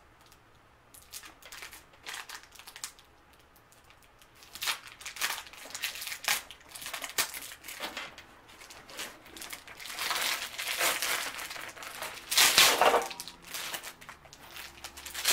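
Clear plastic wrapping crinkling and crackling as it is pulled off a new handbag, in irregular rustles that grow louder in the second half.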